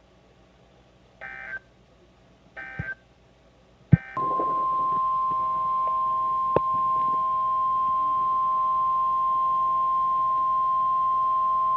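Two short touch-tone-style beeps and a click, then about four seconds in a single steady 1050 Hz warning alarm tone from NOAA Weather Radio, the signal that a new severe weather warning is about to be read.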